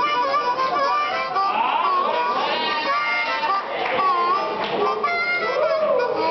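Blues harmonica played live, a melodic line with notes bending up and down in pitch.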